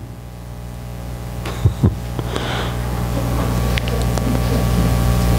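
Steady low electrical hum with a buzz of overtones and a faint hiss, growing gradually louder. Two soft brief knocks come close together about a second and a half in.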